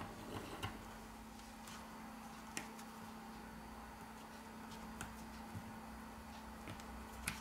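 Sparse light clicks of small parts being handled with tweezers and pressed into a smartphone's frame, with the loudest click near the end, over a faint steady hum.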